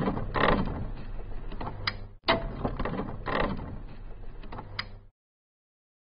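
Mechanical clattering with sharp knocks, in two stretches split by a brief dropout about two seconds in; it stops abruptly about five seconds in.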